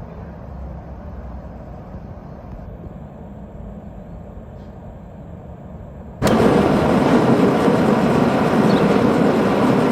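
A low rumble, then about six seconds in a loud, steady roar starts suddenly: a gas forge burner running while it heats the metal.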